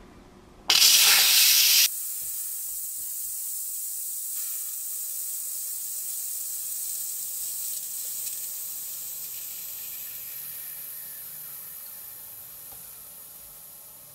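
Instant Pot Duo Plus electric pressure cooker's steam release valve opened for a quick pressure release. A loud burst of hissing steam comes about a second in, then drops to a steady high hiss that slowly fades as the pressure falls.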